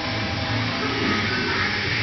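1995 Cummins N14 inline-six diesel engine running steadily.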